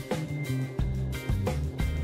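Background music with a steady beat and a moving bass line.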